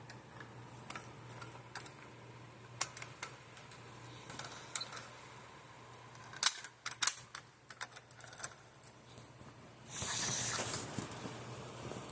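Scattered light clicks and taps from a fire alarm pull station being handled, with a quick run of louder clicks about halfway through and a short rustle near the end.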